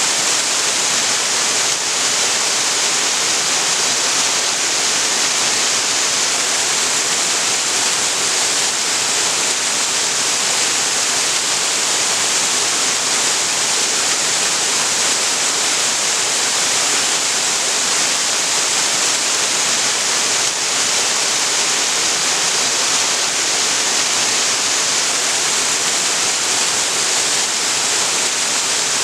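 Waterfall pouring steadily into a creek: an even, constant rush of falling water with a bright hiss.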